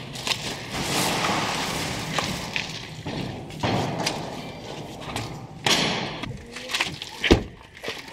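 Plastic bags rustling and brushing as they are carried through a doorway, with scattered knocks and one loud thud about seven seconds in.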